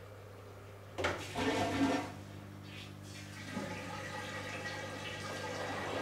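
Water rushing through an Electrolux EWF9042R7WB front-loading washing machine mid-cycle. A loud gush starts suddenly about a second in, then settles into a steady rush of water that grows louder, over a low hum.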